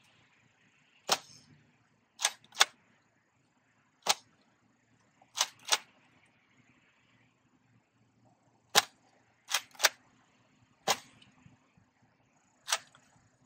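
Nerf N Series Strikeback foam dart blaster firing four shots, each a sharp snap. Between shots come quick pairs of clicks as the blaster is primed, with a last lone click near the end.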